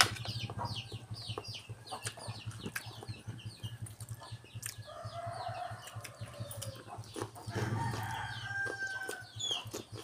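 A rooster crowing a little past the middle, with a second drawn-out call a couple of seconds later, over a run of rapid high chirping from chickens in the first few seconds. Close-up crunching and chewing of raw vegetables and clicks from eating run throughout.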